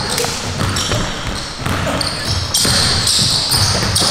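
Basketballs bouncing on a gym floor during a team drill, a steady run of sharp knocks with bright high-pitched streaks between them.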